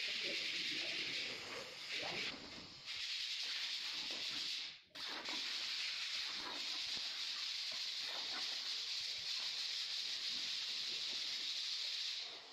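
A steady high-pitched hiss that cuts out briefly about two seconds in and again near the five-second mark, with faint scattered knocks underneath.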